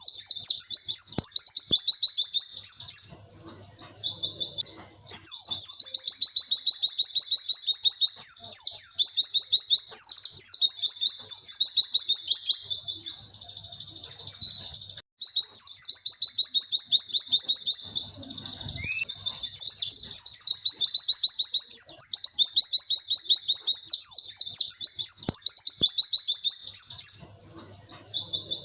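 White-eye (pleci) singing long, rapid, high 'wit-wit' trills, runs of fast repeated notes several seconds long broken by short pauses.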